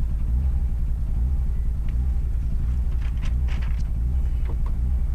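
Steady low in-cabin rumble of a Mitsubishi Lancer Evolution VI rally car's turbocharged four-cylinder engine and drivetrain as it drives on, with a few faint brief rattles about three seconds in. The engine has a misfire on this stage.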